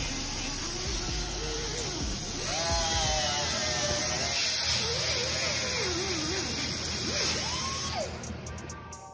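Straight die grinder with a small abrasive disc grinding a steel chassis rail flat. It gives a steady high hiss, and its whine wavers in pitch as the disc is pressed into the metal. The sound cuts off abruptly near the end.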